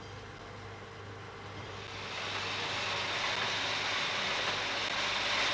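Sheet-fed offset printing press running, its mechanical rushing noise growing louder about two seconds in and then holding steady, over a low steady hum.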